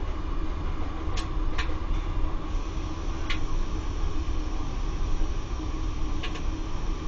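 Circulation pump of a Laddomat 21 charging unit on a wood-fired boiler running with a steady hum and low rumble, with a few sharp clicks scattered through it.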